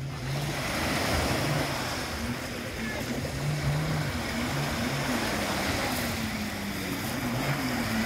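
Small sea waves washing in over a pebble beach and drawing back, with a steady rush of surf. A low hum that wavers in pitch runs underneath.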